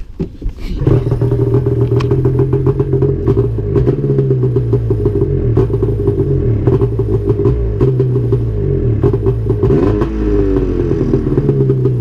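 A 2000 Arctic Cat ZR 600 snowmobile's two-stroke twin engine starting up, catching about a second in, then running with small wavers in pitch and a brief change in engine speed near the end. This is the running fault the owner most likely puts down to a throttle safety switch and throttle free play.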